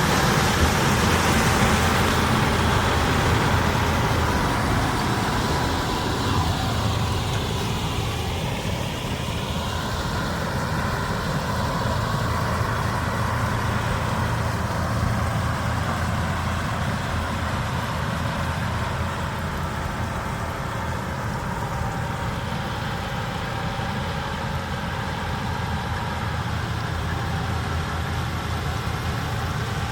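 Farm machinery running steadily: the engines of a combine harvester and a tractor working during harvest. It is a little louder over the first few seconds, then holds at a steady level.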